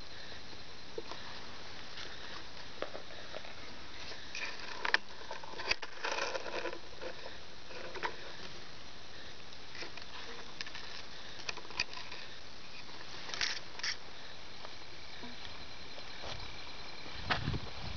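Rustling and clicking of a hand-held camera being moved through wet grass, with a few louder bumps a third of the way in and again about three-quarters through. Underneath runs a steady hiss and a faint, unbroken high-pitched trill.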